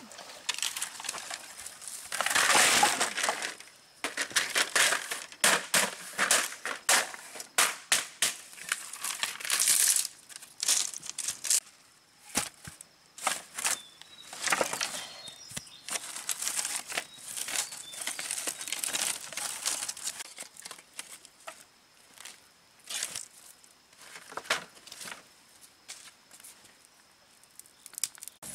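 Dry sticks and branches being handled and stacked into a pile for a campfire: rustling of dry leaves and twigs with sharp cracks, snaps and clatter of wood, coming in irregular bursts. It is busiest and loudest in the first third, then turns sparser.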